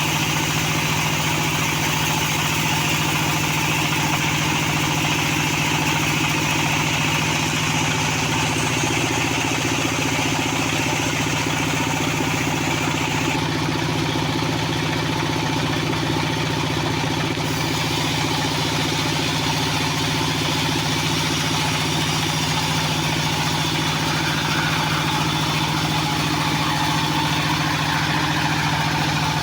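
Band sawmill running with a steady mechanical drone.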